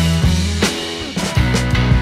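Background rock music with drums, bass and guitar playing a steady beat.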